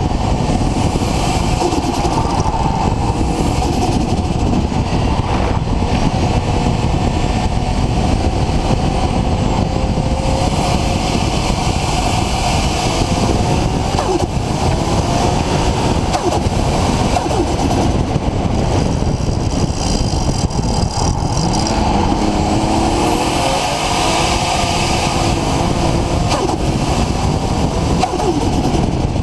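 Nissan RB26 straight-six with a single Garrett GTX4088R turbocharger running loudly and continuously, its pitch rising and falling at times.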